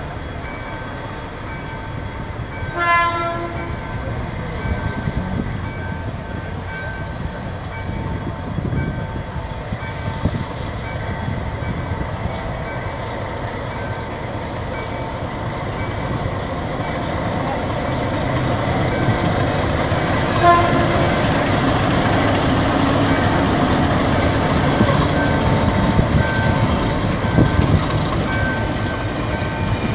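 ALCO DL-535 diesel locomotive running as it hauls a work train past, its engine growing louder as it draws near. Two short horn blasts sound, about three seconds in and about twenty seconds in. A level-crossing bell dings steadily in the background.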